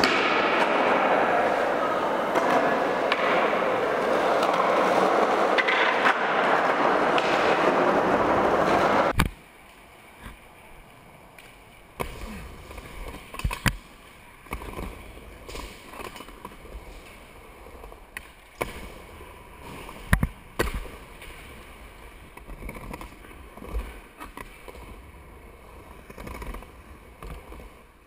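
A loud, dense rushing noise for about the first nine seconds, which cuts off suddenly. After it, skateboard wheels roll quietly over a wooden bowl and ramps, with a few sharp clacks of the board and trucks hitting the deck and coping.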